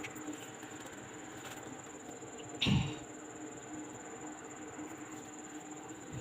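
Steady low hum with a faint high whine, broken once near the middle by a brief thud.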